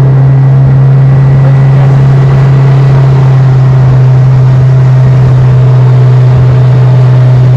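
Boat engine running at a steady, unchanging speed, very loud and close, with a constant low drone. It starts suddenly and cuts off just after the end.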